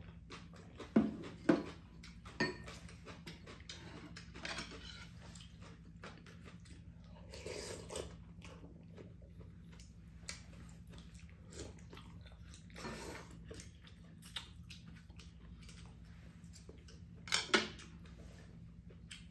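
Two people eating soup at a table: chewing, with sharp clicks of chopsticks and spoons against ceramic bowls now and then, the loudest about a second in and again near the end. A low steady hum runs underneath.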